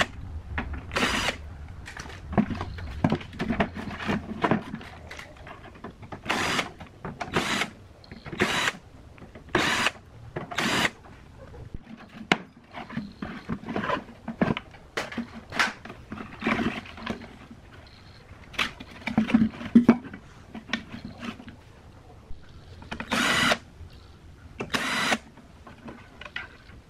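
Cordless drill-driver run in about a dozen short bursts, backing screws out of an amplifier's metal front panel, with handling clatter and scraping of the sheet-metal chassis between the bursts.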